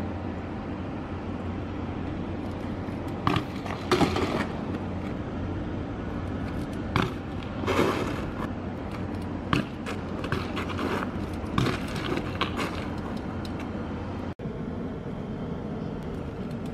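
BMX bike on asphalt: tyres rolling, with scattered sharp clanks and thuds from the bike and a few short scrapes. A steady low hum runs underneath.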